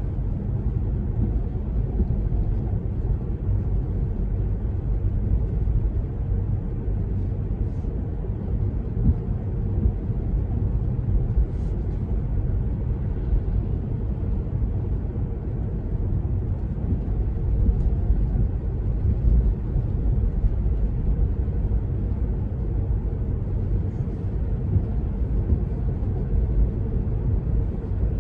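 Steady low rumble of a car driving on wet streets, heard from inside the cabin: engine and tyre road noise.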